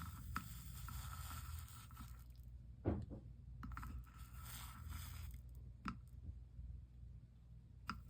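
Rubbing and scraping against the soldered stained glass chime, in two stretches of about two seconds each. A sharp knock falls between them, about three seconds in, and a lighter click comes near six seconds.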